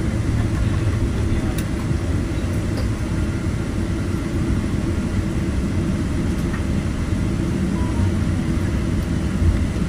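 Steady low rumble inside the cabin of a Boeing 777-200ER with GE90-92B engines rolling out on the runway after touchdown: engine and runway noise as the jet slows down.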